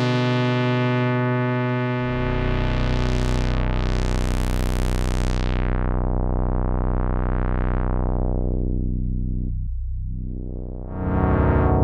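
Sequential Prophet-6 analog polyphonic synthesizer playing held chords, dry with no effects. A deep bass note joins about two seconds in, the filter sweeps open and then closes the sound down, and a new chord comes in bright near the end.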